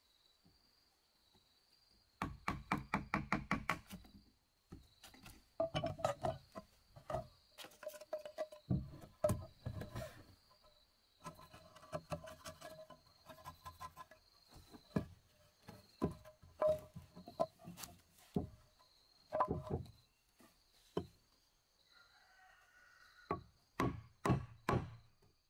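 Wooden mallet striking a chisel to cut a mortise in a timber beam: runs of quick knocks with short pauses between them.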